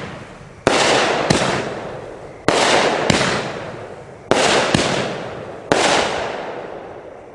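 Brightstar Fireworks 'Wolf Warrior' 500-gram, 18-shot cake firing shot after shot: seven sharp reports, some close together and others about a second apart. Each report trails off over a second or so before the next.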